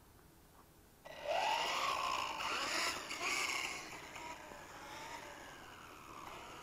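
LRP S10 Blast BX RC buggy's brushless electric motor whining up in pitch as the car launches about a second in, with its tyres hissing over brick pavers; the sound fades as the car drives off.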